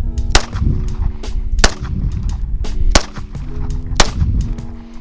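Four pistol shots, sharp cracks spaced roughly a second apart, with background music running underneath.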